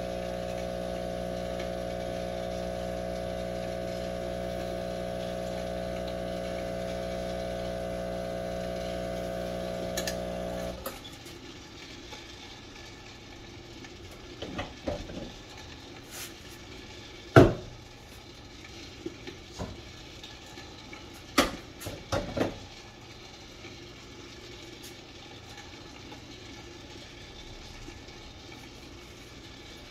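A coffee machine running with a steady electric hum that cuts off about 11 seconds in, followed by several sharp clinks and knocks of kitchen things being handled.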